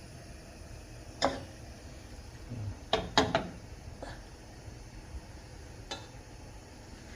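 A few sharp clinks and knocks of kitchen utensils against a pan or container, spaced irregularly, with a quick double knock about three seconds in.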